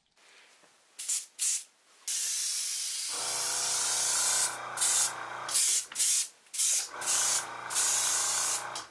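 Airbrush spraying primer: two short bursts of air hiss, then a long steady hiss broken by brief stops as the trigger is let off. A steady low hum runs with the spray twice, from about three seconds in and again near the end.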